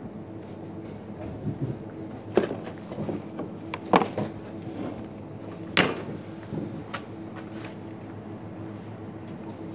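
Thin plastic cutting boards knocking against each other and the shelf as one is handled and set back down: a few sharp clacks, the three loudest a second and a half to two seconds apart, over a steady background hum.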